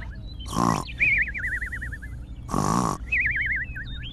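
Cartoon snoring sound effect: twice, a short rough inhale followed by a wavering whistle that slides down in pitch.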